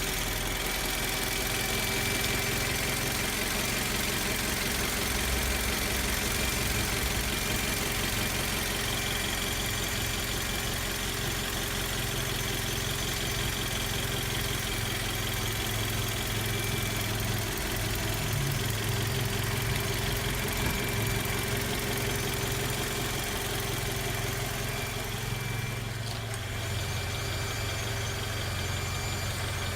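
Toyota Wish running, with a thin high-pitched whine (an "eee" sound) from the transmission over the steady engine hum, fading in and out: an abnormal gearbox noise.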